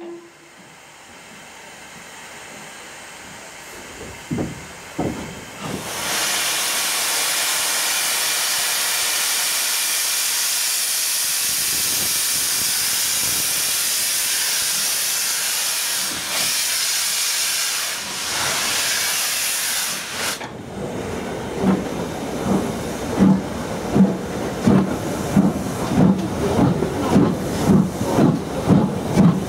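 Steam locomotive hissing loudly and steadily with escaping steam for about fourteen seconds. The hiss stops abruptly, and the locomotive then starts pulling away with a run of exhaust beats that gradually quicken.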